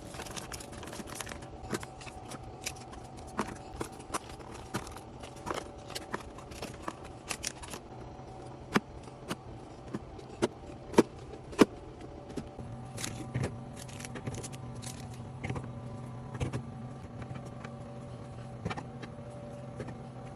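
Irregular clicks, taps and clinks of drinks and packaging being handled and set in place while a mini fridge is restocked, a few sharper knocks about halfway through, over a steady low hum.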